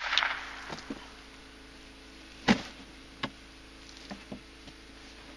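A single shot from a Ruger .22 rifle about two and a half seconds in, a sharp crack with a short echo, followed under a second later by a fainter sharp crack.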